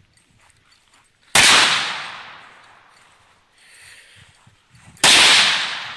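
Two gunshots about four seconds apart, each ringing out across the open field and fading over about a second and a half.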